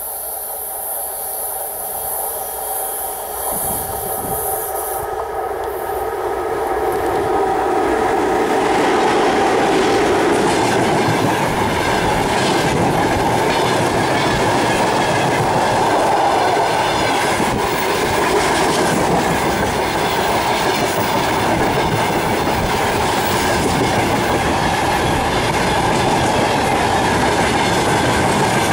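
VL10 Soviet 8-axle DC electric freight locomotive approaching and running past, followed by its loaded freight wagons rolling by. The sound builds over the first several seconds as the train nears, then holds as a steady loud rumble with the rhythmic clickety-clack of wheels over rail joints.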